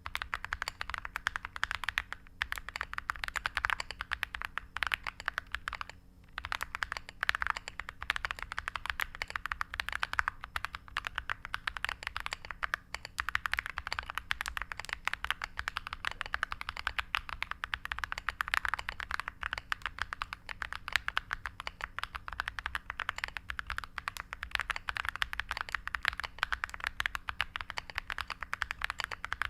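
Continuous typing on a mechanical keyboard with Akko V3 Creamy Purple Pro tactile switches and MOG-profile PBT keycaps: a dense, rapid stream of keystroke clicks, with a brief pause about six seconds in.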